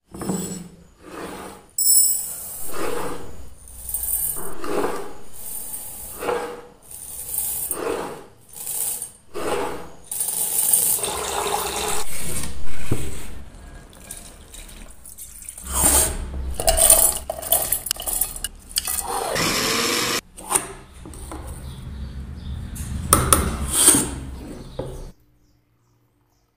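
Soaked chana dal and grains being handled in a glass bowl with water: the grains clatter against the glass while water sloshes and pours. It starts as a run of short strokes and moves to longer stretches of splashing and pouring, then cuts off suddenly near the end.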